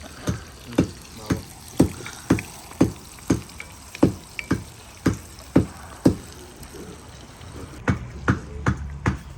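Knife chopping on a cutting board, most likely green onion, with steady strokes about two a second. The chopping pauses about six seconds in and starts again faster near the end.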